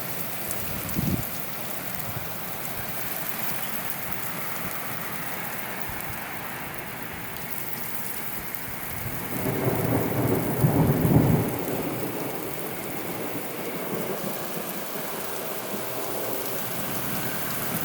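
Heavy rain falling steadily, with a low rumble of thunder that swells about nine seconds in and lasts around three seconds.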